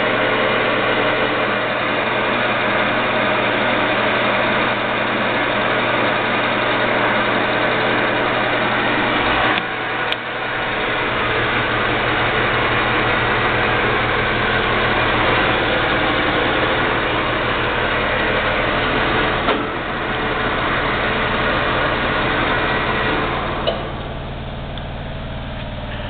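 Vectrax 1440 metal lathe running, its spindle and chuck turning with a steady mechanical whir. The sound shifts about ten seconds in, again near twenty seconds, and drops a little near the end, each time with a short click, as its spindle speeds are changed.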